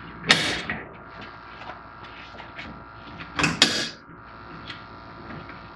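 Freedom Launcher kayak landing-gear wheels being pulled up and stowed at the stern of a fishing kayak: two short, sharp handling noises, one about a third of a second in and one about three and a half seconds in.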